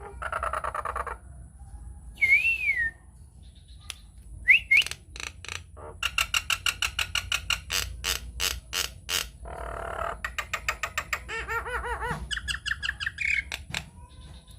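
Nias hill myna singing: harsh rasps, loud whistles that rise and fall, a long run of rapid clicks at about six a second in the middle, then a warbling series of whistled notes near the end.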